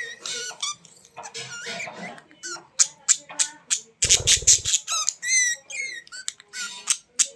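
Pet birds giving rapid, high-pitched chirps, squeaks and squawks, with a brief noisy burst about four seconds in.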